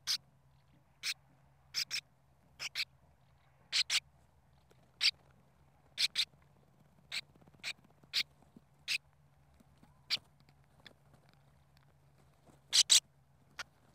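Sand martins calling: short, harsh chirps at irregular intervals, often in quick pairs, about nineteen in all, with a faint steady low hum underneath.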